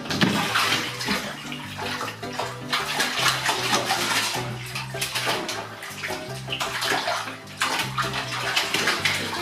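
Water splashing and sloshing in a bath, in irregular surges, over a low background melody.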